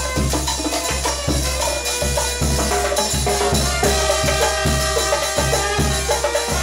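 Peruvian dance band music with percussion and a steady bass beat about twice a second; held melody notes come in about three seconds in.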